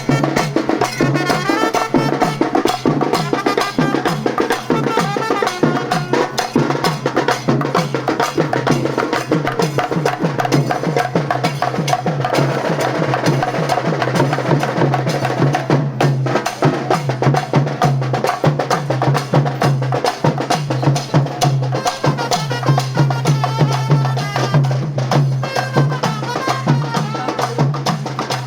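Fast, dense traditional drumming with a pitched melody line over it and a steady low hum underneath.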